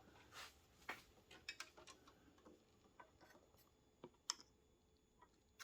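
Faint, scattered light clicks and taps of plastic wiring connectors being handled and plugged together, thinning out to a few isolated clicks near the end.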